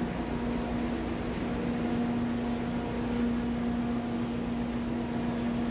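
A ship's engine-room machinery running: a steady drone of noise with a constant hum that does not change.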